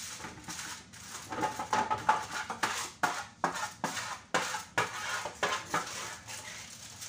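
Slotted spatula scraping and knocking against the inside of a cooking pot as food is scooped out of it, in repeated strokes about two to three a second.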